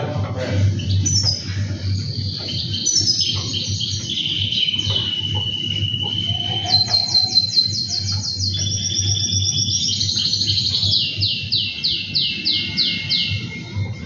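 Male canary singing a continuous song of rapid trills and rolls. There is a long held whistle about five seconds in, and runs of quick falling notes about seven seconds in and again near the end, over a low steady hum.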